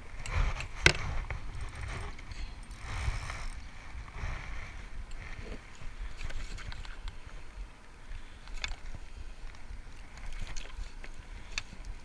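Handling noise in a plastic sit-on kayak: scattered clicks and knocks as a landing net and fish lip-grips are worked by hand, with one sharp knock about a second in over a low rumble.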